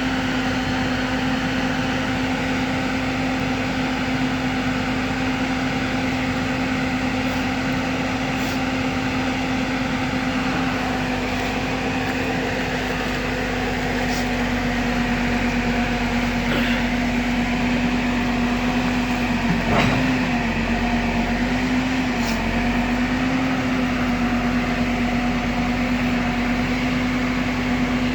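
Heavy diesel machinery engine running at a steady speed. About two-thirds of the way through there is a single knock, and the engine's pitch sags briefly before recovering.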